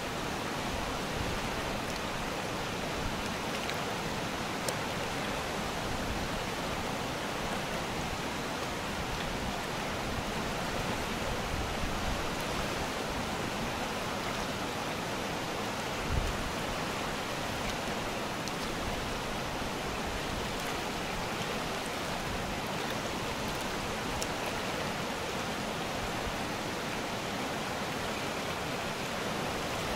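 Steady rush of a fast mountain river running over rocks and rapids, with one brief low thump about halfway through.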